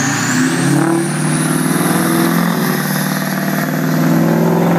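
Ford Super Duty pickup's turbodiesel engine running hard under heavy load as it pulls a weight sled, with a steady engine note and a high whine that rises in pitch over the first couple of seconds and then holds.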